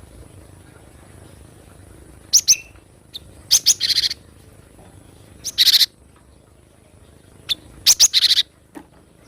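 Cinereous tit (gelatik batu) calling: about four short bursts of high, sharp notes with pauses between them, several running into a harsher buzzy rattle.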